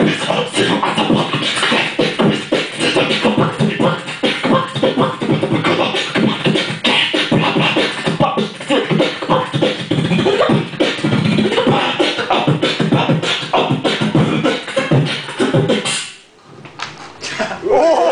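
Human beatboxing through a microphone and PA: a fast, dense stream of vocal kick, snare and hat sounds mixed with voiced tones. It stops about sixteen seconds in, and after a short lull voices shout and cheer near the end.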